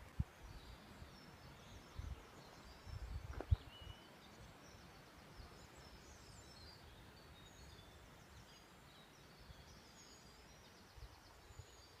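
Faint birdsong in bare woodland: many short, high chirps and trills from small birds, scattered throughout. A few low bumps in the first four seconds, with one sharp knock about three and a half seconds in.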